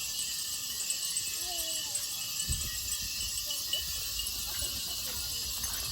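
Japanese fūrin wind chimes tinkling lightly in the breeze over a steady high-pitched hiss. Gusts of wind rumble on the microphone from about two and a half seconds in.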